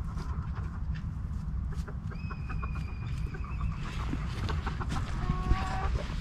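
Chickens clucking, with a thin, held high call about two seconds in and a lower call near the end, over a steady low rumble.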